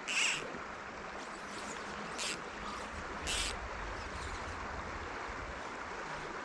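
Small trout stream running steadily, a constant rushing of water. A few short, sharp high sounds stand out near the start and about three seconds in, and a low rumble of wind on the microphone comes and goes in the middle.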